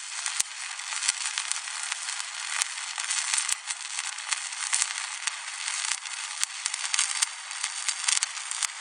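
Hitbox HBM1200 wire welder's arc crackling and sizzling steadily while laying a weld bead on steel, with frequent sharp pops throughout; it cuts off abruptly at the end.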